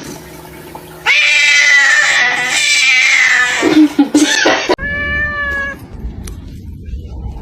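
A cat yowling loudly in one long drawn-out wail of about two and a half seconds, followed by a shorter, steady meow.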